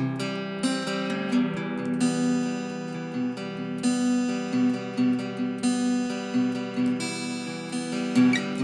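Solo acoustic guitar music played on a Baby Taylor, a small three-quarter-size steel-string acoustic guitar, with picked notes ringing on over one another.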